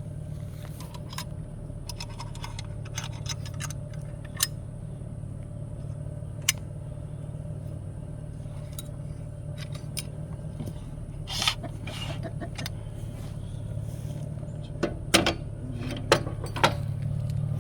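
Sharp metal clicks and clinks of weight-distribution hitch chains and brackets being hooked up, scattered and then bunched near the end, over a steady low engine hum.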